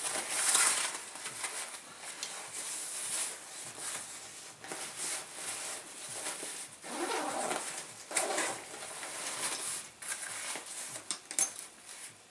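Nylon backpack being handled and opened: fabric rustling and scraping in irregular bursts as straps are loosened and the main compartment's zipper is pulled open, with a few short squeaky scrapes.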